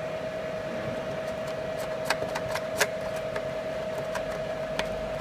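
Steady mid-pitched hum over a fan-like hiss, with a handful of sharp clicks from about two seconds in as a plastic dust cap is worked off an Ethernet port on a CNC control cabinet.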